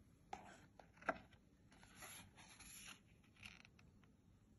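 Faint rubbing and rustling of paper as the pages and cardboard flaps of a lift-the-flap picture book are handled, with a few small taps, the sharpest about a second in.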